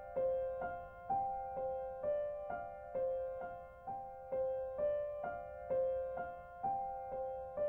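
Gentle background piano music: single notes struck about twice a second in a steady repeating pattern.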